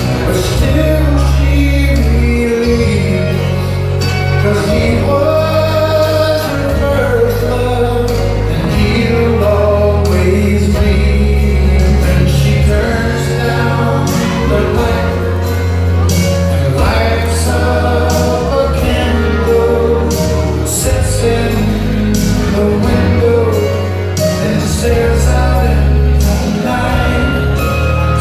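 Waltz music with a singing voice over sustained bass chords that change every second or two.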